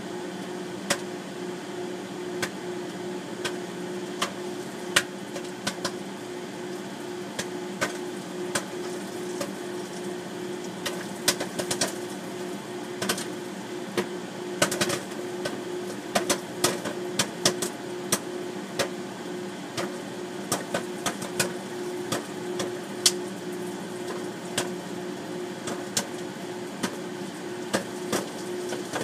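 Microwave oven running with a steady hum while the kernels in a bag of microwave popcorn pop. There are a few sharp pops at first, and they come more often from about a third of the way in.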